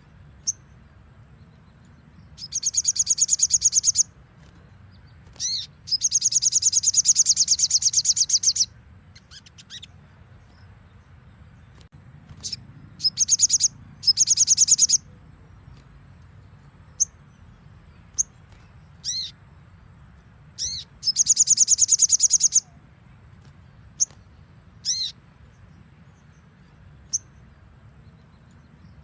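Sogon (spiderhunter) singing: four long, rapid, high-pitched trills of a couple of seconds each, the rapid-fire 'nembak' song, with short sharp down-slurred call notes and single chips between them.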